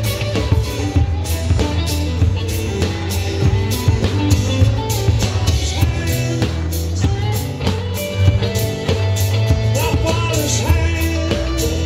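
Live rock band playing: strummed acoustic guitar, electric guitar, bass guitar and drum kit, with a voice singing in places.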